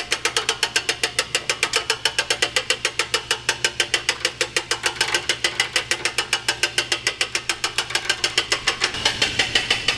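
Hand-cranked winch on a duct jack ratcheting as it is wound: steady, rapid clicking, about seven clicks a second, as the lift raises a greenhouse heater.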